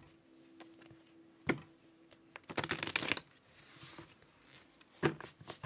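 A deck of tarot cards being shuffled by hand: a short burst of rapid card flutter about two and a half seconds in, with soft taps and slides of the deck before and after it.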